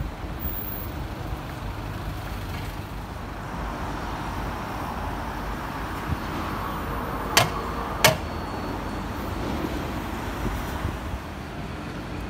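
Railway station background noise: a steady low rumble with a hiss that swells in the middle, and two sharp knocks under a second apart past the middle.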